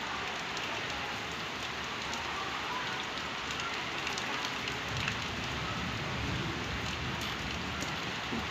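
Heavy rain pouring steadily, an even hiss with scattered close drops tapping.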